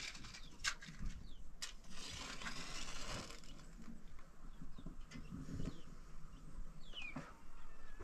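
A gas stove burner being lit by hand: two clicks, then a hiss lasting about a second and a half. Birds chirp faintly in the background, with a falling chirp near the end.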